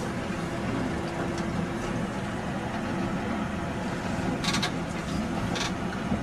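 Fishing boat's motor running steadily under way while trolling, with a constant hum. Two short rattles come about four and a half and five and a half seconds in.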